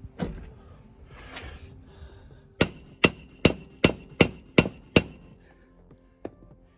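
Hammer blows on a steel bearing installation tool, driving a new gimbal bearing into the gimbal housing of a MerCruiser Alpha One sterndrive. One blow comes first, then a run of seven quick strikes with a metallic ring, about two and a half a second, and a single light knock near the end.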